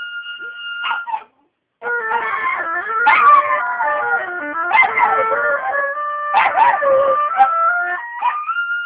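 A dog howling and yelping along with an oboe. The oboe holds a steady note, there is a short silence about a second in, then the dog's wavering, rising and falling howls with sharper yips sound over the oboe's held notes. The oboe holds a single note again near the end.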